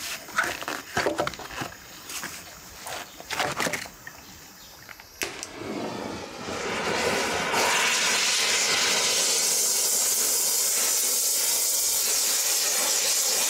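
Irregular knocks and clatter as beef hooves are handled. Then a single click, and a gas torch is lit, its flame hissing steadily and loudly from a little past halfway as it singes the hooves.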